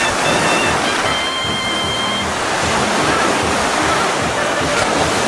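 Steady rush of ocean surf on the beach, with wind rumbling on the microphone.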